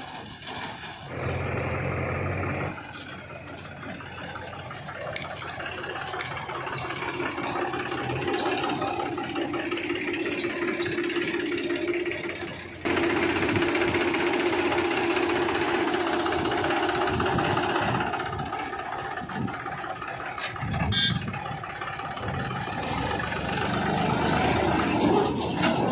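Mahindra 295 DI Turbo tractor's diesel engine running steadily under load as it pulls a loaded trolley, jumping suddenly louder about halfway through.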